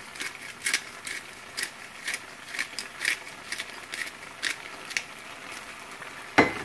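Hand-twisted pepper grinder clicking as it grinds black pepper, about two ratchet clicks a second. A single louder knock near the end.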